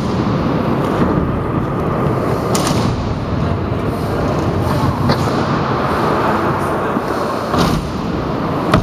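Skateboard and scooter wheels rolling on wooden skatepark ramps: a steady rolling rumble, broken three or four times by sharp clacks of decks and wheels hitting the ramp.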